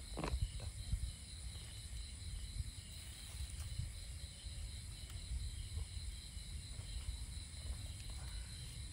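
Night insects, crickets, chirring in a steady high chorus over a low uneven rumble, with one brief knock just after the start.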